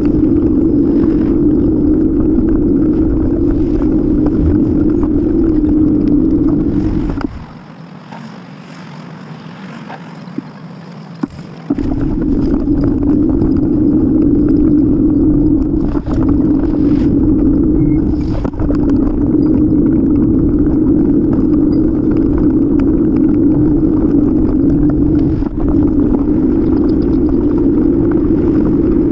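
Steady low rumble of wind buffeting a bicycle-mounted camera's microphone while riding, mixed with tyre and road noise. It drops off for about four seconds near the middle, then comes back.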